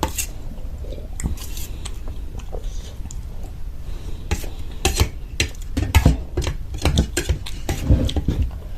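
Cutlery clinking and scraping against a plate during a meal: a run of sharp clicks, sparse at first and quicker and louder in the second half.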